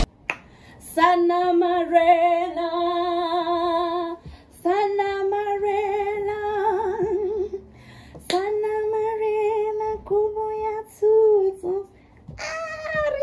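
A woman singing unaccompanied, holding long notes with a wavering vibrato over several phrases with short breaks between them.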